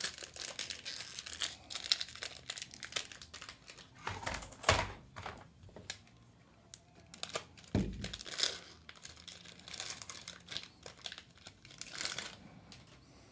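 Foil wrapper of a trading-card pack crinkling and tearing as it is ripped open and pulled off by hand, in irregular crackles with a few louder bursts.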